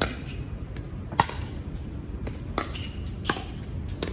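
Pickleball rally: paddles striking the hard plastic ball with sharp pocks, about six in four seconds, the loudest about a second in.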